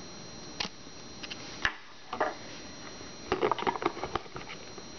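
Small boxed products being handled and set down on a wooden table: a click, a knock and a short rustle, then a quick cluster of clicks and taps about three and a half seconds in.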